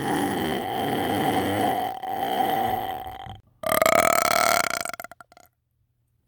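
A person burping: one long, drawn-out burp lasting about three seconds, then after a brief gap a second, shorter burp whose pitch rises slightly.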